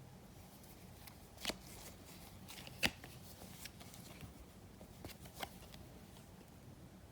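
Trading cards being handled, giving a few short, sharp card clicks and rustles, the loudest about three seconds in.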